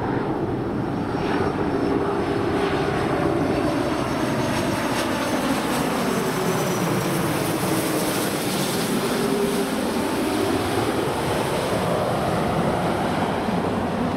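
Airbus A330-343's two Rolls-Royce Trent 700 turbofans on final approach, passing low overhead: a steady loud jet rumble and hiss with faint whining tones that slide down in pitch as it goes by. The hiss is strongest around the middle as the aircraft passes over.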